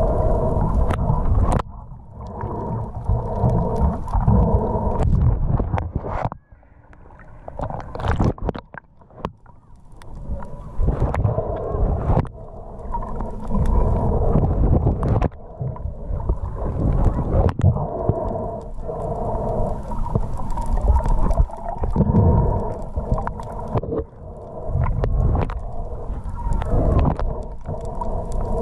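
Underwater sound picked up by an action camera in its waterproof case as a diver swims: muffled rushing and sloshing of water with a steady hum and scattered knocks. It drops away for a few seconds about a quarter of the way in.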